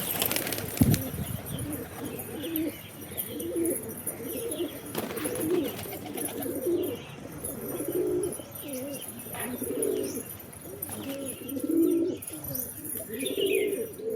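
Pigeons cooing over and over, several low overlapping coos. A knock sounds about a second in, and a few higher chirps come near the end.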